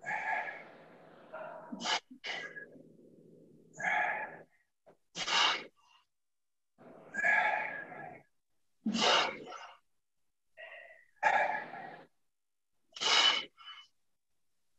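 A person's short, forceful breaths in time with one-arm kettlebell presses, about nine in all, roughly one every one and a half to two seconds.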